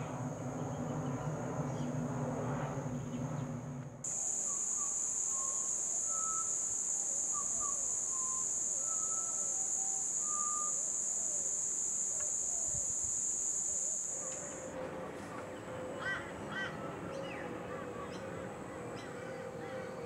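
Pied butcherbirds singing short, clear, fluting whistled notes. Through the middle of the stretch a loud, steady, high-pitched insect drone sits over them.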